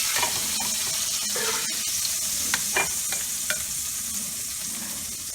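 Steaks frying in butter and oil in a hot skillet: a steady sizzle, with a few sharp clicks of something striking the pan about halfway through.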